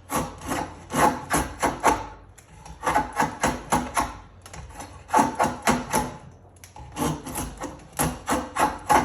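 Drawknife shaving wood while roughing in a leg taper: quick short cutting strokes, about three to four a second, in four runs of several strokes with short pauses between.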